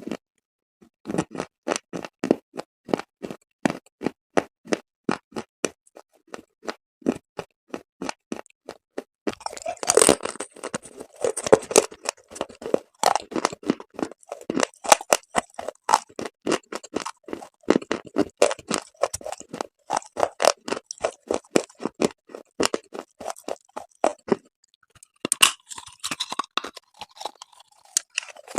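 Close-miked crunching and chewing of dried chalk paste: a rapid run of sharp, brittle crunches several times a second, pausing briefly near the end before a softer, grittier chewing sound.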